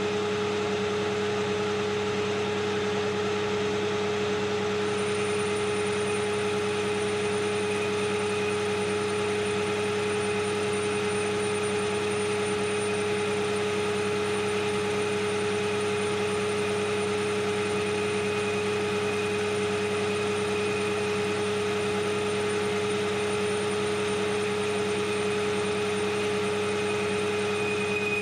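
AL960B metal lathe running steadily under power with a constant hum and whine, taking a light finishing cut on a 4140 steel ball.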